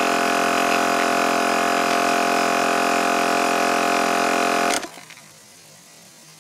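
MotoMaster 12-volt portable tire-inflator air compressor running with a loud, steady electric hum, then shutting off abruptly about five seconds in.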